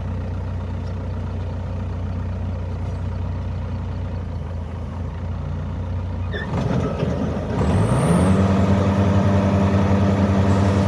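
An engine running at a steady low speed, then revving up about seven and a half seconds in with a rising pitch and holding at a higher, louder speed.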